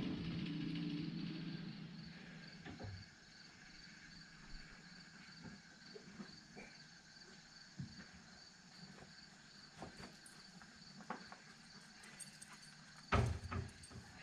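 Faint outdoor ambience with insects chirring in a steady pulsing trill, scattered light clicks and steps, and a few louder close footsteps on gravel near the end.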